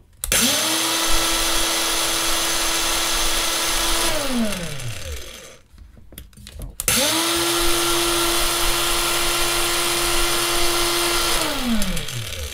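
WORX 20 V cordless angle grinder running with no load, twice: it spins up, runs steadily for about four seconds, and winds down with a falling whine. About a second and a half later it spins up again, runs about four and a half seconds, and winds down. It is powered from a 20 V battery wired straight to its plus and minus terminals, with the thermal-sensor wire left off.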